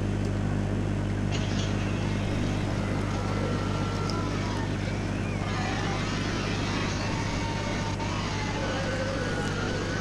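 Steady mains hum with a hiss over it from a microwave oven's high-voltage transformer driving a bare magnetron, running continuously while it heats a bar of soap. Faint wavering whistles come and go over the hum.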